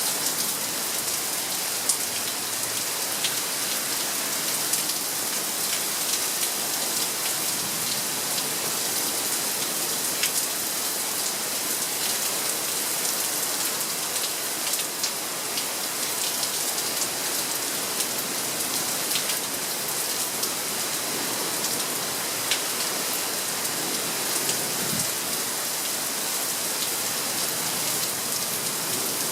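Steady rain from a summer thunderstorm downpour, with many individual drops ticking sharply through it.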